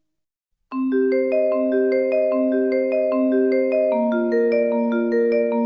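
Music: after a moment of silence, a mallet-percussion instrumental line with a vibraphone- or marimba-like tone starts abruptly. It plays an even, repeating pattern of ringing, overlapping notes, about two or three a second.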